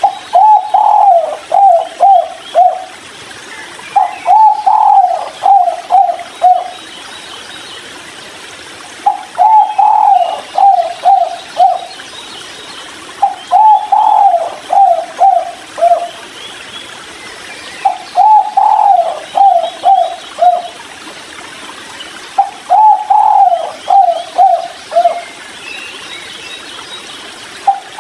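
Spotted dove (tekukur) cooing in the song style keepers call "kuk 3": a phrase of one long coo followed by three or four short coos, repeated about every four to five seconds, six times. Faint chirps of other small birds sound higher up behind it.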